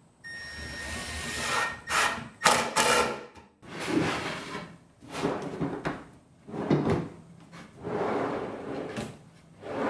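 Wooden drawers sliding in and out on metal side-mount drawer slides several times in a row. Each stroke is a short rolling slide, several of them ending in a knock as a drawer shuts.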